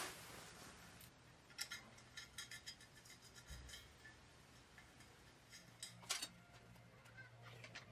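Faint, light metallic clicks and taps of small steel parts being handled: a flat steel bar and bolts set onto square steel tubing. A quick run of taps comes about a second and a half in, and a couple of sharper clicks come about six seconds in.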